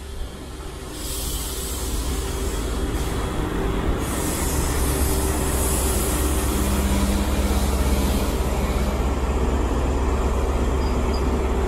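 Class 43 HST diesel power car running with a steady deep rumble that grows louder over the first few seconds and then holds, with a faint hiss coming and going above it.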